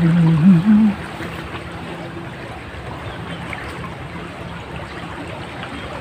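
Irrigation canal water rushing steadily, the canal running high and fast. A person's voice hums briefly in the first second.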